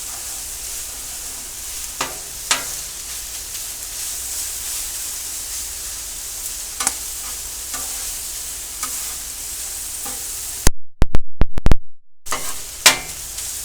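Chicken thigh chunks sizzling on a Blackstone flat-top griddle, with a few scrapes and clicks of a metal spatula. About eleven seconds in comes a burst of very loud sharp clacks lasting about a second and a half.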